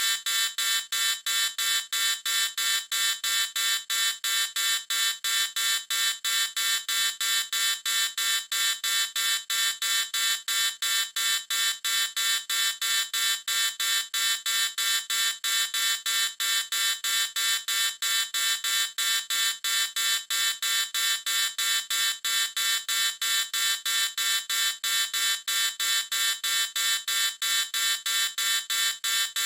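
High-pitched electronic alarm-like buzzing tone, pulsing steadily about three times a second without change.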